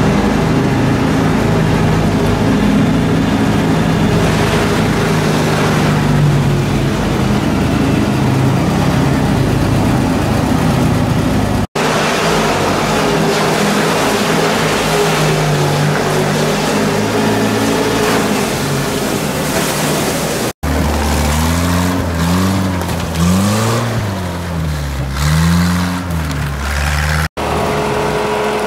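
Engines of UAZ off-road 4x4s: first one running at a steady pace as it drives through a concrete tunnel, then an engine revving up and down several times in quick succession.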